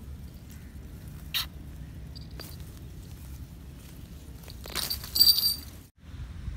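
Scuffling and light clicks as a shikra hawk grips and tears at a caught myna among crop leaves, with a brief bright, ringing jingle about five seconds in.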